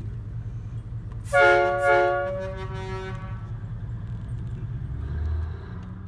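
A multi-tone air horn blown twice in quick succession about a second in, then fading over the next second or so. Under it runs a steady low engine rumble.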